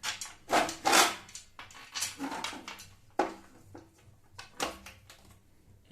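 A bolt and other small router-table parts being handled and fitted into a slot: a series of sharp clicks and knocks at irregular intervals, the loudest about a second in.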